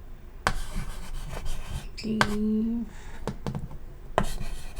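Chalk tapping and scraping on a chalkboard as names are written, a handful of sharp strokes. About two seconds in comes a brief low hum of the voice.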